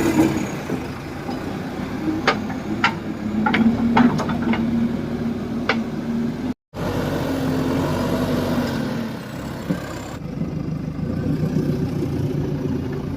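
JCB 3DX backhoe loader's diesel engine running steadily, with several sharp clanks in the first half and a brief cut to silence about six and a half seconds in.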